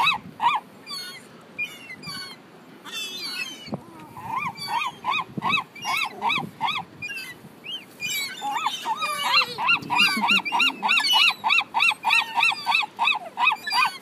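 A flock of gulls calling close by: runs of short, rising-and-falling calls, about three or four a second. The calls are sparse for a few seconds after the start, then run steadily from about eight seconds in.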